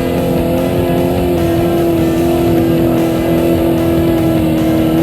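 Off-road truck engine at high revs under heavy throttle, a loud, steady drone climbing a steep mud hill.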